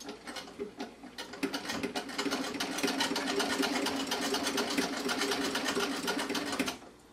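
Vintage treadle sewing machine stitching through two layers of fleece: a few slow clicks that speed up over the first two seconds into a steady, fast, even clatter of the needle and feed mechanism, stopping abruptly near the end. It runs without strain through the layers.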